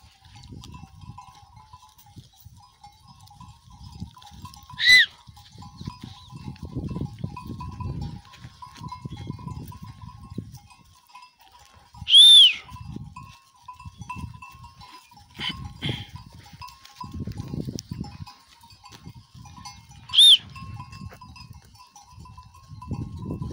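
A grazing flock of sheep and goats with a faint, continuous jingle of flock bells and low, muffled noise that comes and goes. Three short, high-pitched, whistle-like calls, each rising and then falling, stand out several seconds apart as the loudest sounds.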